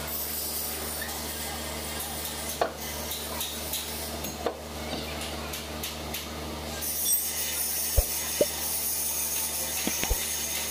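Metal tools clinking and knocking against a truck trailer's wheel and brake drum, several sharp clicks with most in the last few seconds, over a steady low workshop hum. A high hiss comes in about two-thirds of the way through.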